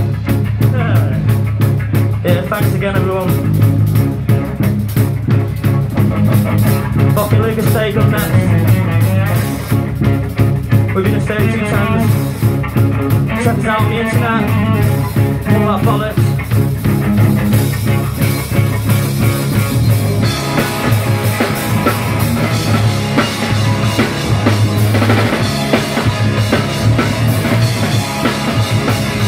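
Live rock band playing, with the drum kit keeping a steady beat under the other instruments.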